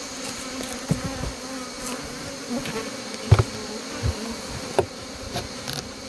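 Honeybees buzzing in a steady hum, with several sharp knocks and clunks from the wooden hive box as it is opened, the loudest about three seconds in.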